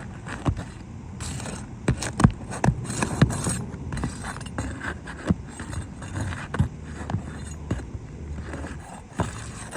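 A crowbar working under asphalt roof shingles to break their sealant bonds: scraping, with irregular sharp clicks and knocks.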